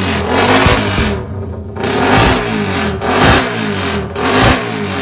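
Suzuki Raider 150's single-cylinder four-stroke engine being revved in about four quick blips, the pitch rising and falling back each time.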